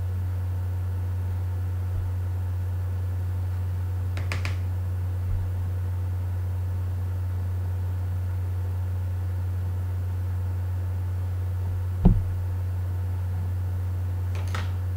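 Steady low hum with a few faint rustles, and one short knock about twelve seconds in.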